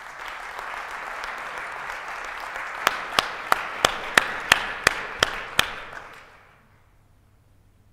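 Audience applauding. Partway through, one clapper close by stands out with nine sharp, evenly spaced claps, about three a second, before the applause dies away a little before the end.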